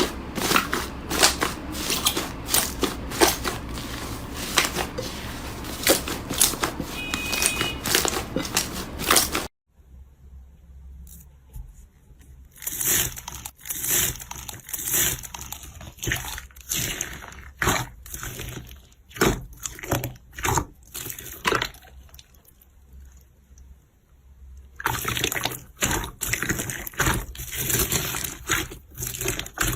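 Slime being squeezed and worked by hand: wet squishing with many small crackling pops. The sound changes twice, thinning to fewer, separate squelches about ten seconds in and turning dense again near the end.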